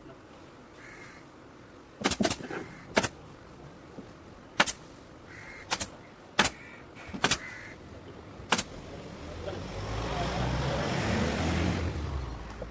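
About eight sharp knocks at irregular intervals, some in quick pairs, then a vehicle passing by, its rumble rising and fading over about three seconds near the end.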